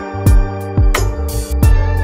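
Background music with a steady beat: kick drum and sharp percussion strikes about one and a half times a second over a held bass and chords.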